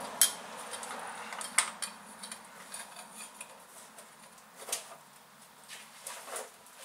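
Socket and long breaker bar clinking on a tight differential fill plug as it is strained to break it loose: a few sharp metallic clicks, the loudest just after the start, others about a second and a half and nearly five seconds in.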